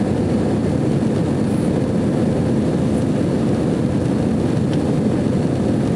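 Steady drone of jet engines and rushing airflow heard inside an airliner cabin in flight, deep and even.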